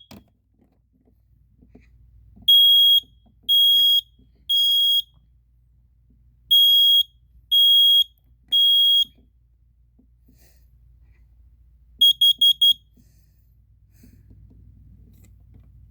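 Kidde 30CUDR smoke alarm sounding on test: two rounds of three loud, high-pitched beeps (the temporal-three evacuation pattern), then a quick run of four short beeps about twelve seconds in.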